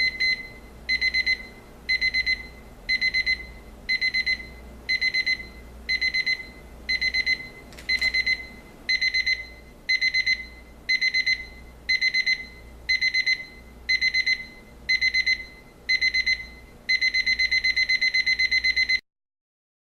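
Equity 30029 LED alarm clock's electronic alarm sounding: short bursts of rapid, high-pitched beeps about once a second that run together into continuous beeping near the end, then stop suddenly. This is the clock's ascending beep alarm.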